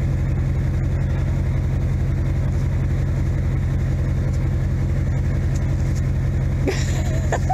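A vehicle engine idling steadily: a low, even hum with a fast regular pulse.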